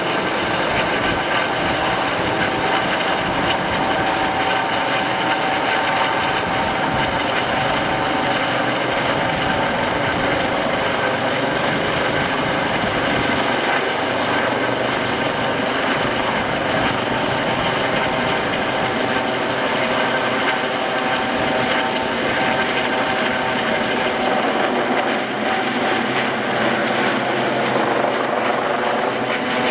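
Twin-turbine rescue helicopter in flight, moving away: steady rotor noise under a high, constant turbine whine, with the pitch shifting slightly near the end.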